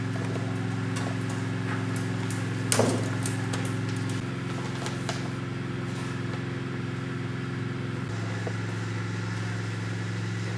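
Steady low machine hum made of several layered tones, shifting slightly in pitch twice, with scattered light clicks and one louder knock about three seconds in.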